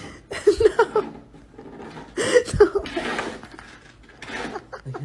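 A person laughing in quick short bursts, mixed with rustling and crunching of a cardboard box caving in under a cat's weight.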